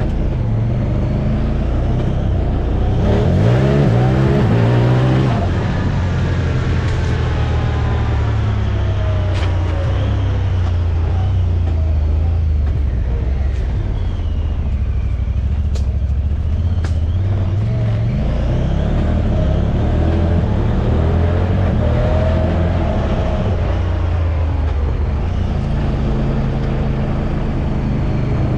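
Turbocharged Honda Talon side-by-side's 999 cc parallel-twin engine running on the move, revving up hard about three seconds in and rising and falling with the throttle later on. A few sharp clicks come near the middle.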